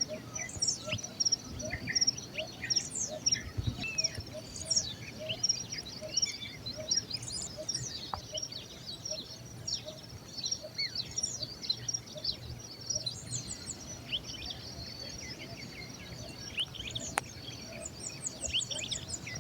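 Several birds chirping and calling over one another in many short, quick notes, some sweeping up or down. Near the end comes a fast run of high ticking notes.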